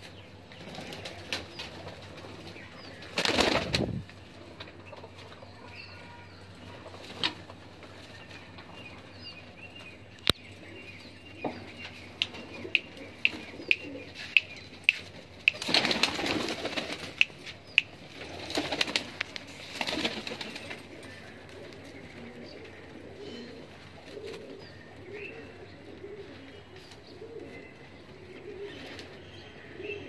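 Domestic pigeons in a wire-mesh loft: several bursts of wing flapping, the loudest a few seconds in and two more past the middle, with a quick run of sharp taps between them. Low pigeon cooing wavers on through the last third.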